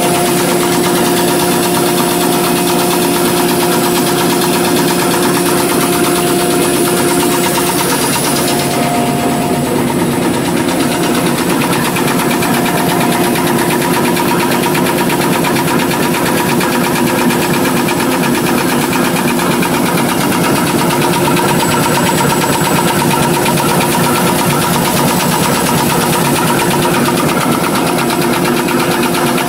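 XY-BT-288 two-line N-fold hand towel paper machine running: a steady mechanical hum with a fast, even clatter from its rollers and folding section.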